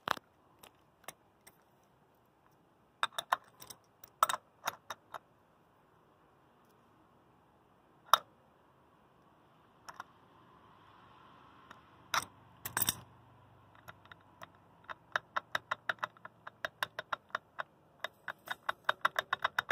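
A loose stamped steel eBike torque arm clicking and clinking against the hub motor axle and its nut as it is handled, with metal-on-metal knocks from an adjustable wrench on the axle nut. Near the end comes a fast, even run of clicks, about four a second, as the arm is rocked back and forth: the arm's slot is loose on the axle flats.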